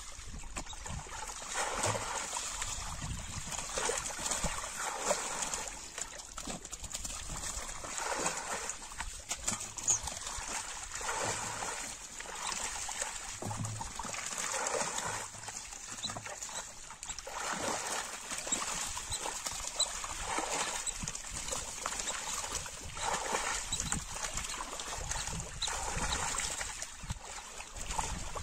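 Muddy shallow water splashing and sloshing in irregular bursts every second or two as people wade and grab murrel (snakehead) fish by hand, the fish thrashing in the puddles.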